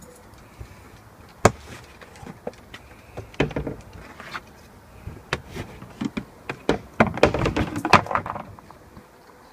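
Plastic trash-can lids and bins being handled: lids pulled off and set down, giving a run of hollow plastic knocks and clatters, with the busiest clattering near the end.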